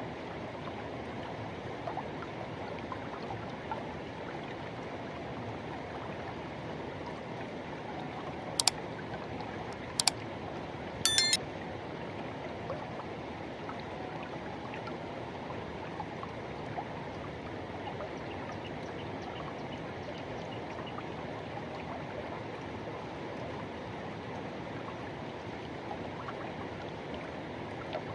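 Forest river flowing, a steady rush of water with no pauses. A little before halfway come three sharp clicks about a second and a half apart; the last is a short rattling cluster.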